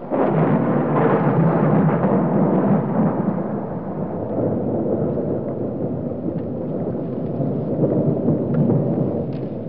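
Loud rolling thunder that breaks in suddenly and then rumbles on steadily, easing a little near the end.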